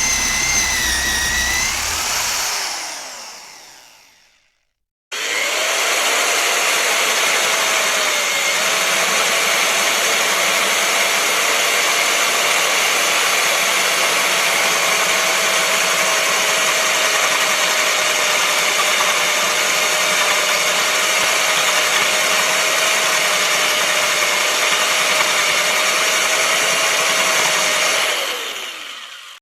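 Electric drill running: a short burst that winds down over about four seconds, then after a brief pause a long run at steady speed with a constant motor whine, slowing down near the end.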